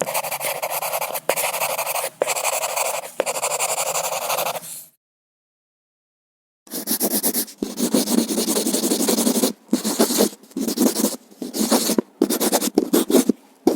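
Pencil scribbling hard on paper. About five seconds of continuous fast scratching with a few sharp ticks, then a pause of nearly two seconds, then shorter, deeper scratching strokes separated by brief pauses.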